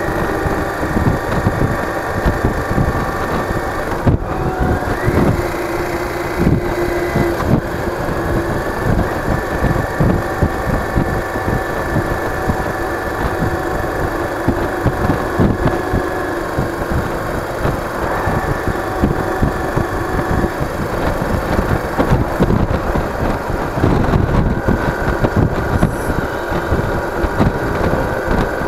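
Yamaha DragStar Classic's V-twin engine running as the motorcycle is ridden, with a low, uneven pulsing beat; its pitch rises about four seconds in and shifts again later.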